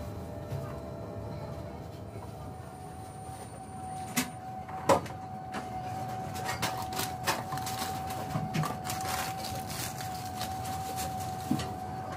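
Hemodialysis machine being cleaned and handled: scattered sharp clicks and knocks, loudest about four and five seconds in, over a steady single tone and low hum from the machine.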